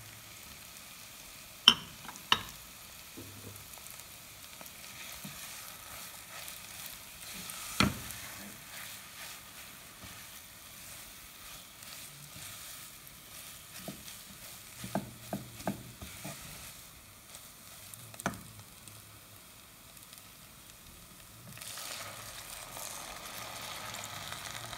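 Mashed potatoes with cumin, nigella seeds and chilli flakes frying in oil in a non-stick pan: a faint steady sizzle, stirred with a silicone spatula that knocks sharply against the pan a couple of times about two seconds in and again about eight seconds in, with lighter taps later. Near the end water is poured into the pan and the hiss grows louder.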